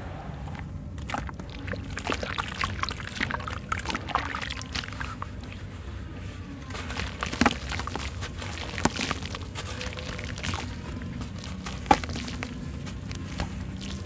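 Wet sand-cement lump squeezed and crumbled by hand over a basin of milky water: gritty crackling and squelching, with sloshing and splashes as pieces drop into the slurry. There are a few sharper snaps, the sharpest about twelve seconds in.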